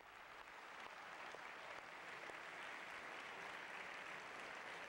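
An audience applauding in a large hall, the clapping swelling over the first couple of seconds and then holding steady.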